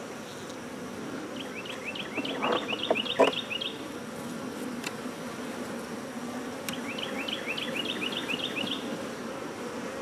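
Honey bees humming steadily over an open hive. A few wooden knocks come about two and a half to three seconds in as frames are shifted with a hive tool. A bird sings twice, each time a quick run of rising chirps.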